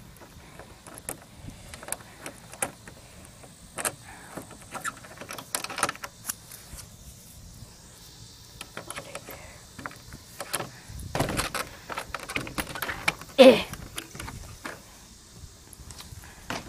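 Footsteps and rustling through grass, with irregular clicks and knocks of a handheld phone being moved. A loud, short, falling cry-like sound cuts in about three-quarters of the way through.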